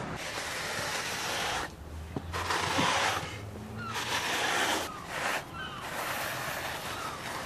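Repeated rubbing or scraping strokes across slate tile, each a noisy swell about a second long with short pauses between. Birds chirp faintly near the end.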